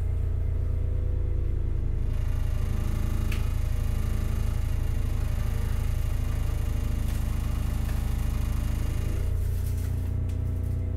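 Hakodate City Tram 3000 series car running, with the whine of its Toyo early GTO VVVF inverter and traction motors over a steady low rumble. The pattern of the inverter tones changes about nine seconds in, and there is a sharp click about three seconds in.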